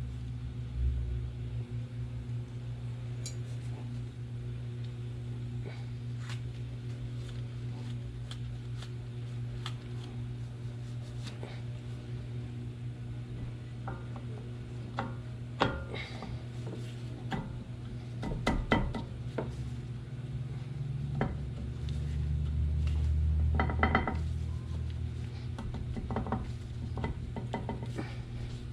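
Scattered metallic clinks and knocks as brake pads are slotted into a Brembo brake caliper, with a cluster of knocks about two-thirds of the way through. A steady low hum runs underneath.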